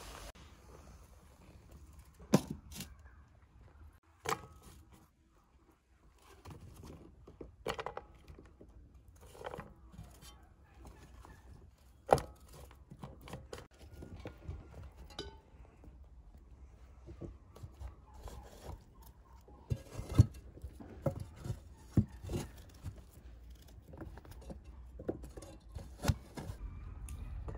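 Hollowed quince halves being handled and set into a metal pan: scattered clicks, knocks and scrapes of fruit and utensils against the pan, with a few sharper knocks.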